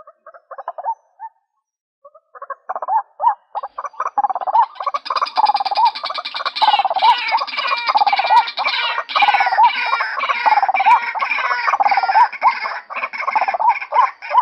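Female white-breasted waterhen calling: a few short notes, a brief pause, then from about two seconds in a fast, rhythmic run of repeated calls that thickens into a dense stream of overlapping notes.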